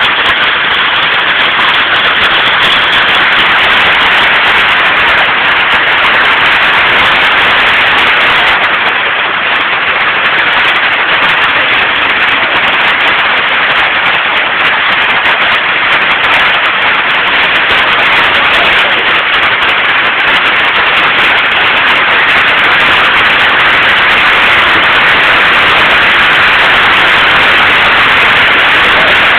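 Hail falling heavily in a hailstorm, a dense steady clatter of hailstones striking surfaces that goes on without a break.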